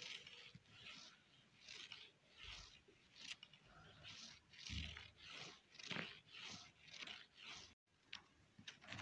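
Soft scratchy rustling on carpet, repeated about twice a second, as a kitten's paws and claws scrape at a cord dragged across the carpet. The sound breaks off for a moment near the end.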